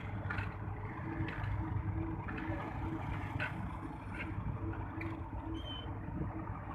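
Steady low drone of an idling engine, with a few faint clicks scattered through it.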